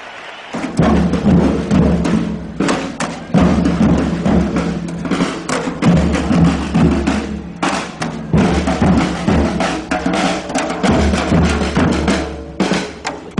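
A percussion group drumming, kicking in about half a second in with a dense, driving rhythm of deep drums and sharper strikes.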